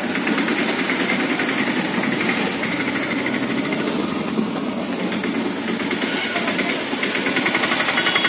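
Small engine running steadily with a fast, rattling beat.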